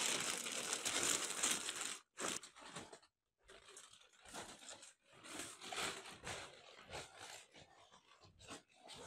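Plastic bags rustling and crinkling loudly as they are handled for about two seconds, then quieter, scattered rustles and footsteps as a bag is carried away.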